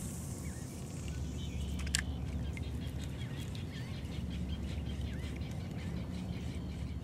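Birds chirping faintly over a steady low rumble on the water, with one sharp click about two seconds in.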